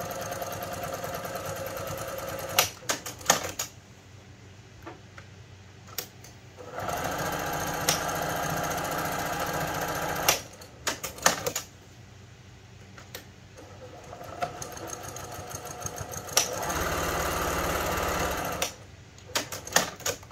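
PQ1500 straight-stitch sewing machine running in three short stretches, stopping and starting, with sharp clicks and knocks in the pauses between runs.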